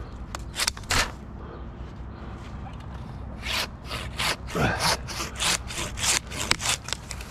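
Silky pruning handsaw cutting into green white pine wood with short rasping strokes: a few strokes, a pause of about two seconds, then a quick steady run at about three strokes a second.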